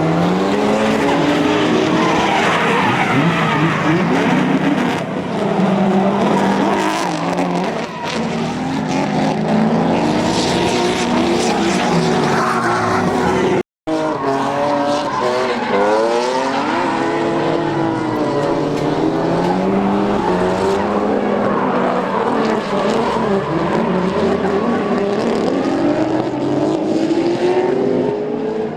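Drift cars on track: engines revving hard, their pitch sweeping up and down constantly, over tyre squeal. The sound drops out for an instant about halfway through.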